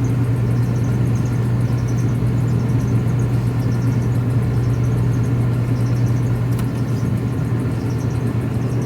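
York 3-ton rooftop AC unit running with its compressor and blower on but its condenser fan stopped: a steady, low mechanical hum. With the condenser fan not turning, the head pressure is climbing very quickly.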